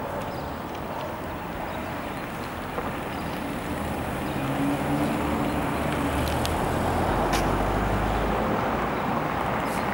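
Outdoor town traffic noise: a steady hiss and rumble, with a motor vehicle's engine hum growing louder from about four seconds in and dropping away a second or so before the end.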